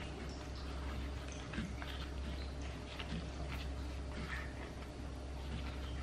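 Faint rustling and light ticks of a thin spring roll wrapper being folded by hand over its filling, over a steady low hum.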